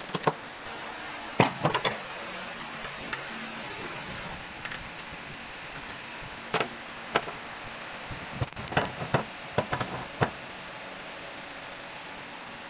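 Irregular metal knocks and clunks from a Toyota Yaris driveshaft and CV joint being handled and repositioned in a steel bench vise, over steady workshop background noise. A few knocks come near the start and a tighter cluster about two-thirds of the way through.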